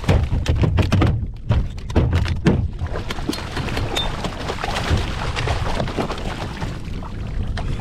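A gaffed kingfish thrashing at the surface beside a kayak, slapping and splashing the water and knocking against the hull, with several heavy hits in the first three seconds and then quicker, lighter splashing.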